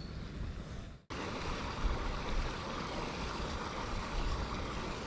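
Steady outdoor noise of water and wind on the microphone around a float tube on a river, broken by an abrupt cut-out about a second in before the noise resumes.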